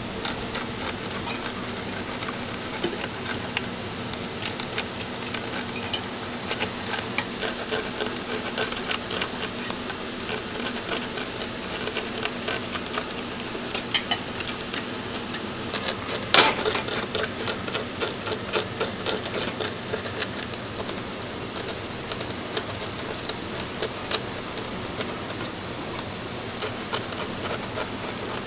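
Wooden toothpick scratching and pricking at a brittle dalgona sugar candy disc to break out the pressed shape: a rapid run of small dry clicks and scrapes, with one louder crack about sixteen seconds in. A steady low hum runs underneath.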